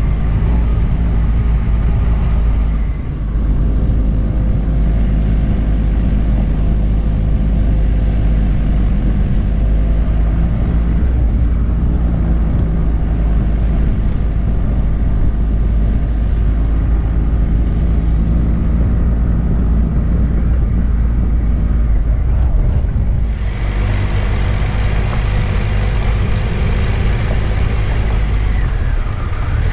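2020 Triumph Tiger 1200's three-cylinder engine running steadily as the motorcycle rides along, over a heavy low rumble. About 23 seconds in, the sound turns brighter, with more hiss.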